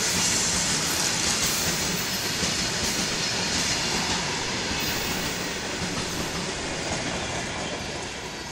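Wheels of a BCNA covered-wagon goods train rolling past on the rails, a continuous rumbling rattle that slowly fades toward the end as the last wagons go by.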